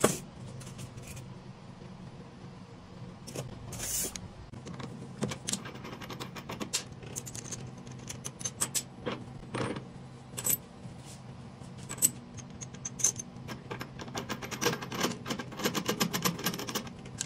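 Metal spacers, nut and cutter heads of a spindle shaper clinking and clicking as they are taken off and fitted onto the spindle by hand, with a dense run of small clicks in the last few seconds. A steady low hum runs underneath.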